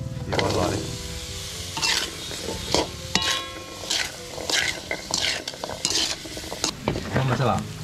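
Diced vegetables tipped into a hot wok sizzle as they hit the oil and chili paste, then a metal spoon scrapes and stirs them around the pan in a run of short strokes.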